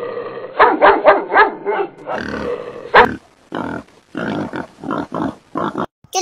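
An animal giving a series of short calls: a quick run of about five in the first two seconds, one loud call about three seconds in, then more at a slower pace.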